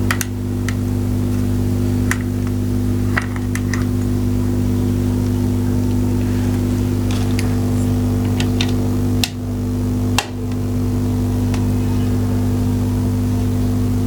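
2SC5200-based subwoofer amplifier humming through its speakers: a loud, steady low hum with a stack of buzzing overtones, the transformer's noise picked up by the amplifier through the transformer's ground wire. Small clicks and taps of a screwdriver at the ground-wire screw sound throughout, and the hum dips briefly twice about two-thirds of the way in.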